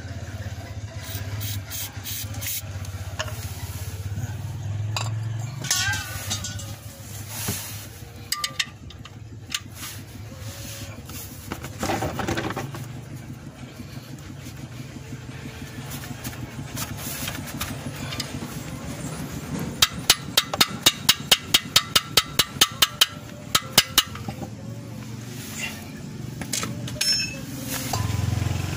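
Scrubbing under a car's transmission pan, with scattered clinks and scrapes. Later comes a run of about sixteen quick, even brush strokes, some four a second, over a steady low hum.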